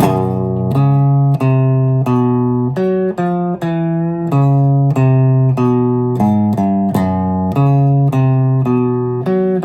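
Electric guitar playing a low single-note riff on the bottom strings, a steady run of held notes stepping down and back up, about two notes a second.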